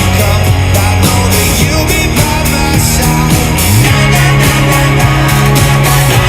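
Rock music from a full band, with regular drum hits, guitar and a held bass note that steps up in pitch about four seconds in.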